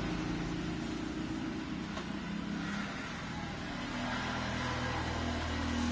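A steady low mechanical hum made of several steady tones, its pitch shifting slightly about four seconds in.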